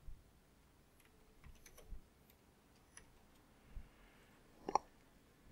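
Computer keyboard keys tapped: a few faint, scattered keystrokes, with one louder tap near the end.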